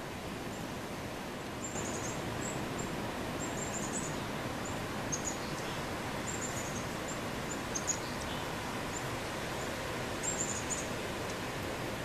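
Outdoor ambience: a steady background hiss with small birds chirping in short runs of high, thin notes, scattered every second or so.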